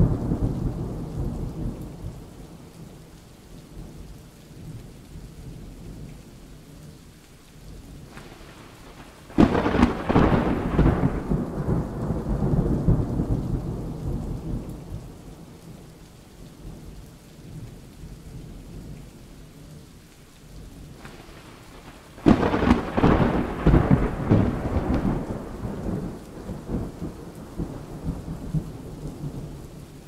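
Thunderstorm: steady rain with rolling thunder. A rumble dies away at the start, then two sudden thunderclaps, about nine seconds in and again about twenty-two seconds in, each rumbling off over several seconds.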